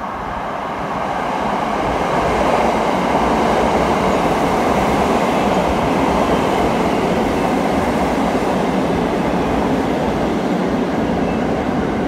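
JR West Thunderbird limited express electric train pulling into the platform, its cars rolling past close by. The running noise builds over the first two seconds, then holds steady.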